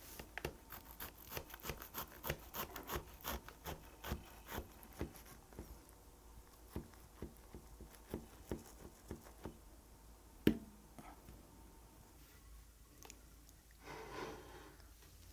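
Small clicks, rubbing and rustles of hands handling the cake's packaging and utensils, dense at first and then sparser, with one sharper click about ten seconds in and a short rustle near the end.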